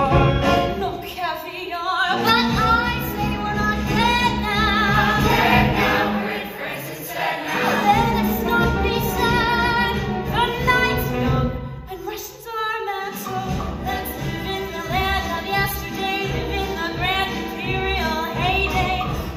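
Musical-theatre cast singing together over an instrumental accompaniment, the voices held with vibrato, with short breaks about two seconds in and again around twelve seconds in.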